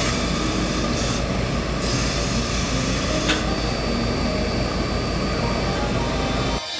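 Steady rushing hiss from a tailor's steam-pressing setup while a hose-fed steam iron presses a wool suit jacket front, with a few brief louder surges of steam. It cuts off abruptly near the end.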